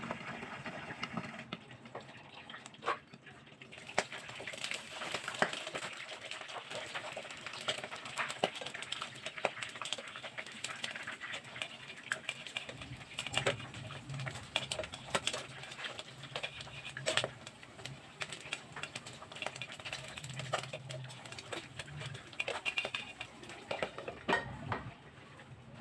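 Pork frying in its own rendered fat in a lidded pan: a steady sizzle with irregular sharp pops and crackles of spattering fat. A low hum joins about halfway through.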